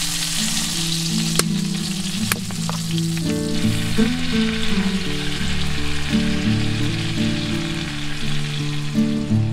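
Tuna steak sizzling in hot butter and oil in a pan, the sizzle thinning after about three seconds, with two sharp clicks early on. Background music with a melody plays throughout.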